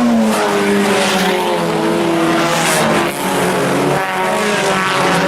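Several four-cylinder IMCA Sport Compact race cars running hard, their overlapping engine notes rising and falling in pitch as the pack goes by.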